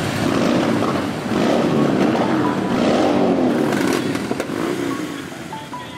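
Harley-Davidson V-twin motorcycle engines running, with the revs rising and falling; the sound grows quieter over the last second or two.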